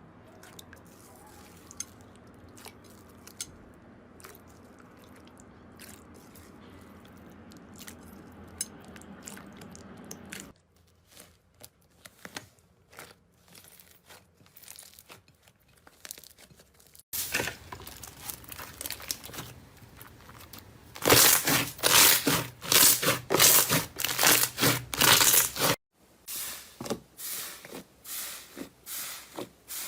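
Slime being squeezed and stretched by hand: sticky crackling and popping. It starts as faint scattered clicks and becomes a dense run of loud pops and crackles in the second half, changing abruptly a few times.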